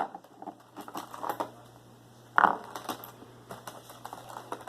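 Small plastic toy pieces and packaging being handled: scattered clicks and rustles, with one louder knock about two and a half seconds in.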